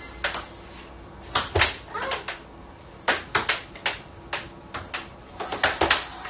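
Air hockey puck and mallets clacking: an irregular run of sharp plastic knocks as the puck is struck and rebounds off the table's rails, coming thick and fast near the end.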